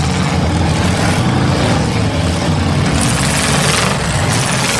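Demolition derby car engines running hard as the cars push against each other, a dense, steady engine noise with no single crash standing out.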